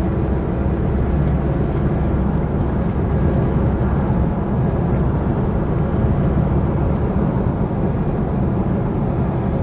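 Chevrolet S10 pickup driving at speed in fifth gear: a steady drone of engine and road noise. It carries the truck's abnormal 'ronco', a rumbling that grows as speed and revs rise.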